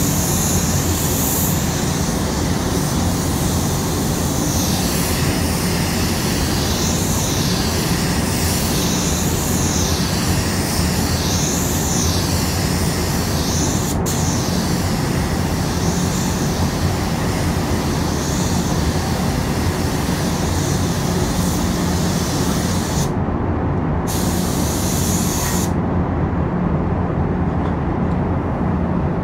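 Automotive paint spray gun hissing as it lays on basecoat, over the steady low hum of the spray booth's ventilation. The hiss wavers as the gun moves, breaks off for about a second, comes back briefly, then stops a few seconds before the end, leaving only the booth hum.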